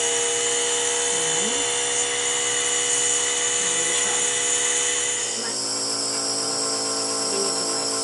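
Omron NE-C801 compressor nebulizer running, a steady pitched motor hum. About five seconds in, the sound changes to a slightly different, somewhat quieter steady hum: the older Omron NE-C28 compressor nebulizer running for comparison.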